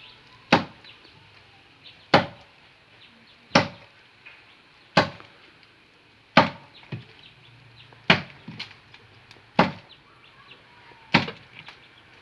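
Axe chopping into a tree trunk by hand: eight sharp blows at an even pace, about one every second and a half.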